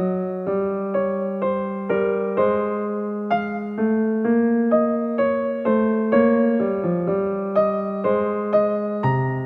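Soft background music on a piano-like keyboard, with notes struck about twice a second, each one fading away.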